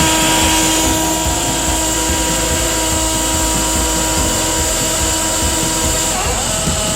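An electric motor, such as a power tool's, runs steadily with a high whine and a few steady tones under it. The tones shift a little near the end.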